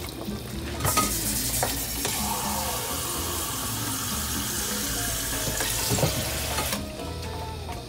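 Water poured into a simmering pot of sancocho: a steady splashing pour that starts about a second in and stops suddenly near the end.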